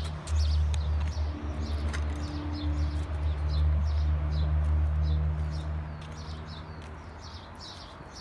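Small birds chirping over and over, short quick calls several a second, over a steady low hum that fades away about six seconds in.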